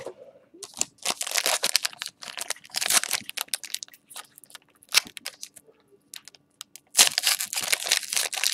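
Foil wrapper of a trading-card pack being torn open and crinkled by hand: two long bursts of crackling crinkling with a pause in between and a single sharp click in the pause.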